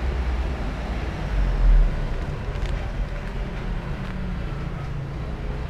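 Steady low rumble of street traffic with a louder low boom about a second and a half in.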